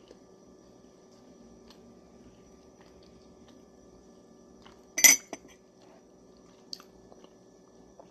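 Quiet eating of soft rice cakes: faint chewing and small clicks over a steady low hum, with one brief loud crackle about five seconds in and a sharp click near seven seconds.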